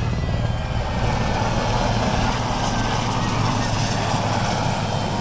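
Sikorsky S-61 Nuri helicopter flying low past, with a steady rapid beat of the main rotor over the rumble of its engines.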